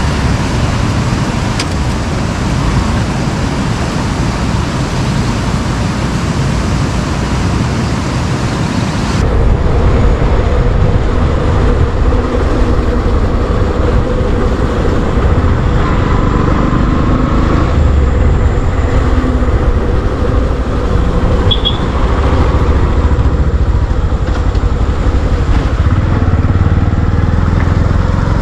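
Motorcycle running while being ridden, a steady rumble mixed with wind noise on the microphone. About nine seconds in the sound changes abruptly and grows louder, with more low rumble and a faint steady hum.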